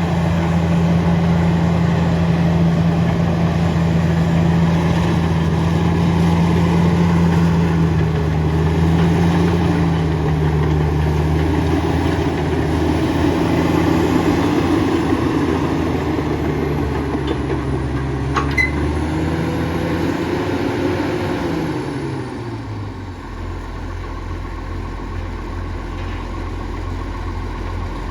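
Komatsu D68ESS bulldozer's diesel engine running steadily, then winding down in pitch about three-quarters of the way through and settling to a lower, quieter idle. A single sharp click near the middle.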